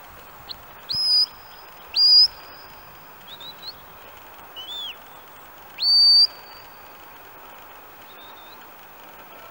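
Shepherd's whistle commands to a working sheepdog: three loud notes, each sweeping sharply up and holding a steady pitch, about one, two and six seconds in, with a few shorter, softer chirps between them.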